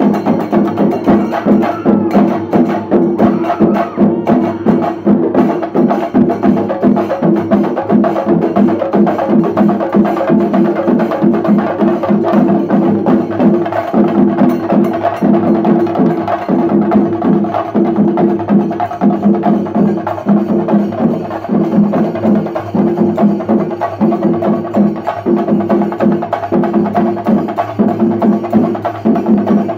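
Shinkari melam: a group of chenda drums beaten with sticks in a fast, unbroken rhythm, loud and dense.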